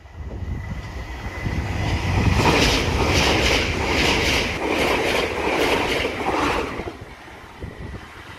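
A Great Western Railway Class 800 Hitachi train passing close by at speed, with a rhythmic clatter of wheels as the coaches go past. It builds for the first couple of seconds, holds loud, and fades near the end, with wind rumbling on the microphone throughout.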